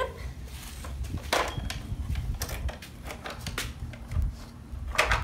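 Plastic clicks and knocks from a Thomas & Friends carry-and-go train case being handled, with a cluster of sharp clicks near the end as its latches are worked open.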